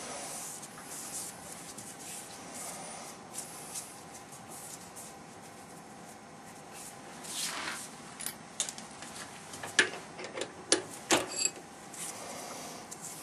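Metal lathe chuck and chuck key being handled, with sharp metallic clicks and knocks over a steady faint hiss. The clicks cluster from about eight to eleven seconds in, and one rings briefly.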